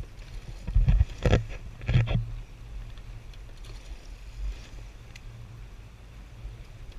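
Water rushing past a coxed four rowing shell under way, over a low steady rumble. A few loud sharp sounds come about one and two seconds in.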